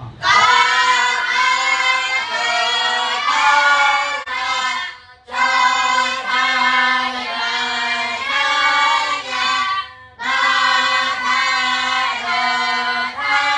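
Group of young voices, the novice monks and boys of a beginners' Khmer class, reciting the lesson in unison as a sing-song chant on held notes. It comes in three phrases, with short breaks about five and ten seconds in.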